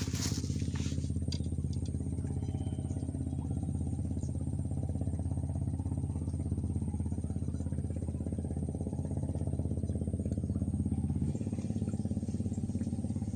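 A small engine running steadily with a fast, even firing pulse. Its note shifts slightly about eleven seconds in.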